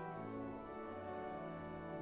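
Church organ playing held chords that change every second or so.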